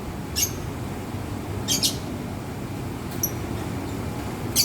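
Lovebirds giving a few short, shrill chirps, scattered singly over a few seconds, over steady low background noise.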